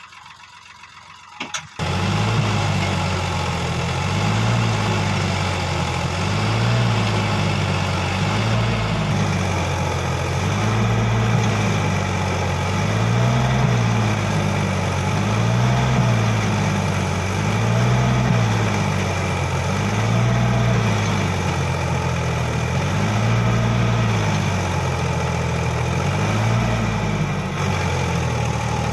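Sonalika DI 750 RX tractor's diesel engine running under load as it drags its tipped-up trolley through loose soil, its pitch rising and falling about every two seconds. It comes in suddenly and loud about two seconds in, after a fainter start.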